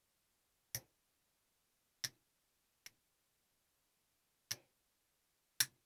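Five sparse, sharp metallic clicks from a lock pick working the pins of a pin tumbler lock under tension, as the pick goes back to lift the sixth pin stack.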